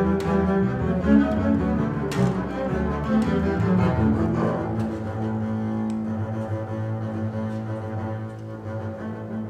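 Three double basses played with the bow as a trio: quickly changing notes in the first half settle into long held notes from about halfway through.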